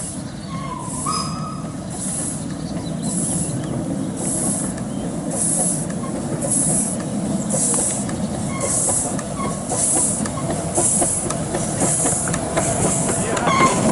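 Narrow-gauge steam locomotive working, its exhaust beats coming as regular hissing chuffs about once a second. The sound grows steadily louder as the engine draws nearer.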